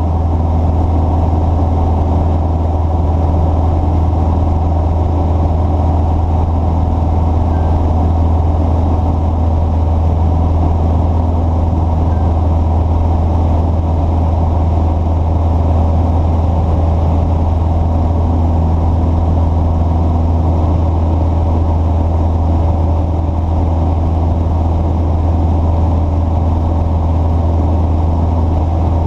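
Vehicle engine running steadily, a deep even hum with no change in speed.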